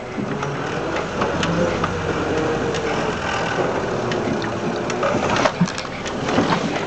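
Land Rover Series 2a's four-cylinder petrol engine running as it drives over rough ground, heard from inside the cab, with the body and fittings knocking and rattling; a few sharper knocks come about five seconds in.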